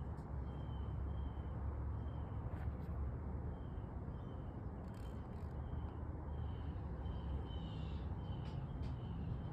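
Outdoor background with a steady low rumble, and a short, thin, high chirp repeating about twice a second throughout, with a few faint clicks.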